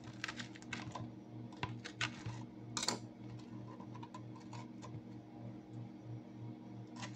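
Crackling and small clicks of a crusty samoli bread roll being handled and pulled open by hand, thick in the first three seconds and then a few scattered clicks. A steady low hum runs underneath.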